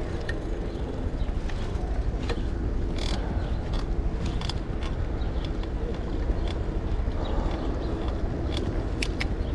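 Bicycle riding noise: steady rumble of wind on the microphone and road, with scattered irregular clicks and creaks from the bike.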